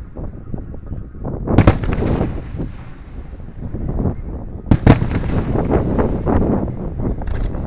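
Aerial fireworks shells bursting: two very loud sharp bangs, about one and a half seconds and about five seconds in, each followed by a run of smaller crackling pops and rolling rumble.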